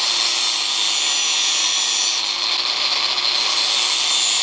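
Handheld angle grinder running steadily, its disc grinding into the edge of thin perforated sheet metal, with a steady motor hum under the hiss of the grinding.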